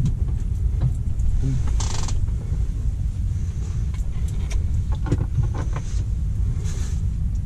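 Handling noise as a hooked fish is unhooked by hand: small clicks and two brief rustles, about two seconds in and near the end, over a steady low rumble.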